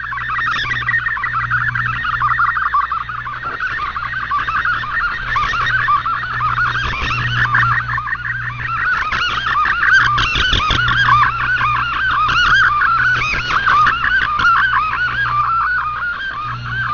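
Shortwave digital-mode data signal received over the radio: a continuous warbling stream of rapidly changing tones in a narrow band, multi-tone FSK carrying text or image data. A steady low hum runs underneath.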